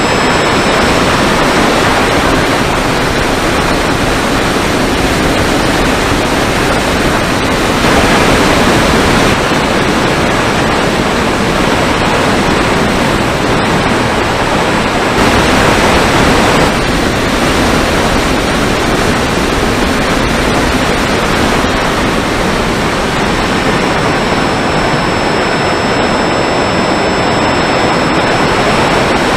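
Loud, steady wind rush over the onboard camera of a Mini Talon FPV plane in flight, swelling briefly twice, with a faint high whine from its electric motor drifting in pitch.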